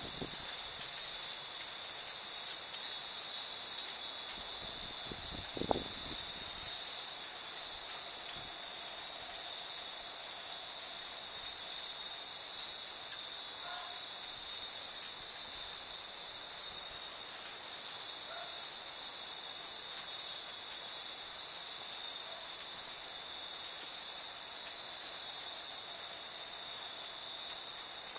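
A steady, high-pitched chorus of insects runs throughout. A few faint glass wind-chime rings come through now and then, and there is one brief low thump about six seconds in.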